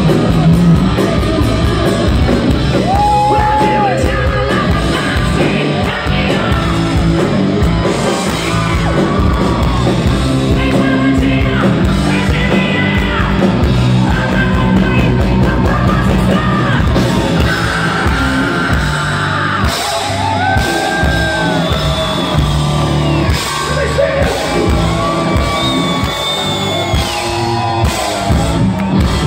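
Live hard rock band playing loud with electric guitars, bass and drums, and a singer belting and screaming long, high held notes over it.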